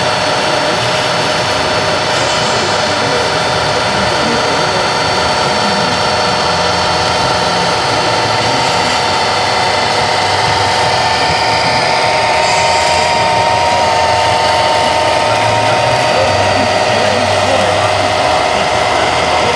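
Radio-controlled 1:14-scale MAN semi-truck driving slowly: a steady mechanical whine from its electric drive and gearing, with several held tones, one of them growing stronger about ten seconds in.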